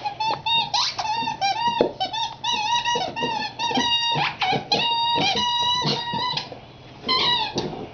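A squeaky rubber dog toy squeaking repeatedly as a puppy chews and squeezes it: quick runs of high, wavering squeaks that bend up and down in pitch. They pause briefly about six and a half seconds in, then squeak again.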